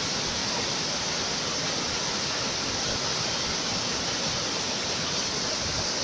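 Waterfall pouring over rocks into a churning pool: a steady, loud rush of water.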